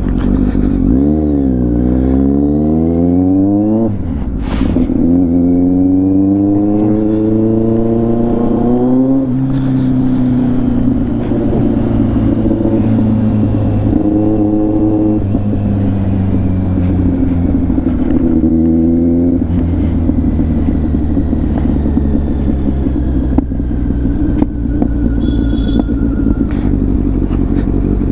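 Kawasaki Z900's inline-four with an SC Project exhaust accelerating hard: the revs climb, drop at an upshift about 4 s in, climb again through the next gear, then settle into a steady cruise with two short throttle openings later on. Road and wind rush run underneath.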